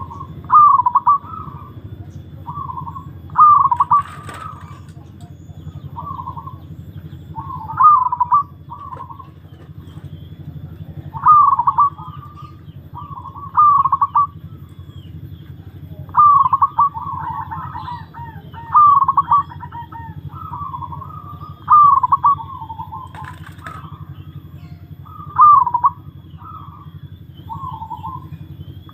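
Zebra dove (perkutut) cooing: short, rapid multi-note coo phrases repeated every two to three seconds, over a steady low hum.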